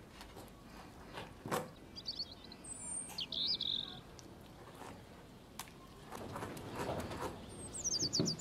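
Small wire whisk stirring thick cake batter in a glass bowl, with scattered clinks and scrapes against the glass. A bird chirps twice, once a few seconds in and again as a quick run of falling notes near the end.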